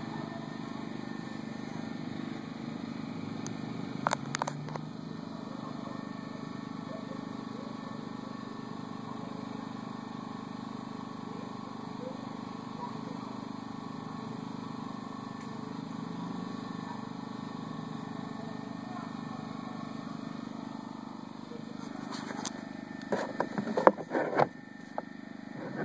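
Small engine running steadily, with a few sharp clicks and knocks from handling about four seconds in and again near the end.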